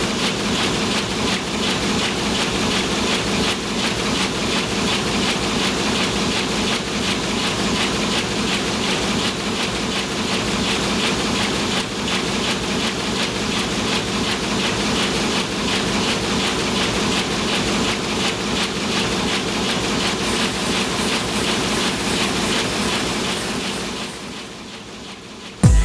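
Offset printing press running: a steady, rapid mechanical clatter over a hum, fading out near the end.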